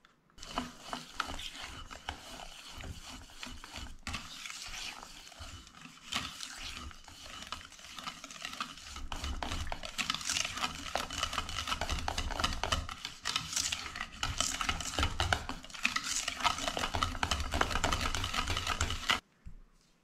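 Wire whisk beating thick cream cheese batter by hand in a stainless steel bowl, the wires clicking and scraping against the bowl in quick strokes as melted butter is mixed in. It gets louder about halfway through and stops abruptly near the end.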